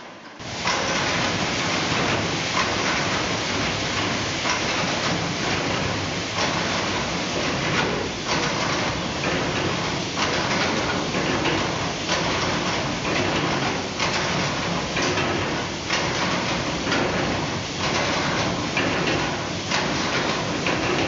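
Old belt-driven wool-mill machinery running: a wool-washing machine's rake forks and rollers working fleece through its tub, a dense steady clatter full of irregular knocks. It starts abruptly about half a second in.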